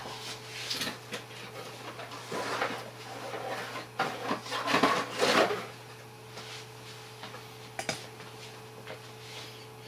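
Packaging being handled and rustled with a few knocks while the camcorder's mains charger unit is taken out of its box. The handling is busiest about four to five and a half seconds in, over a faint steady hum.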